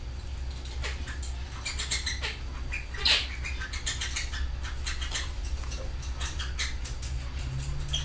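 Canaries in an aviary fluttering their wings in many short rapid flurries, with a few brief chirps; the loudest flurry comes about three seconds in. A steady low hum runs underneath.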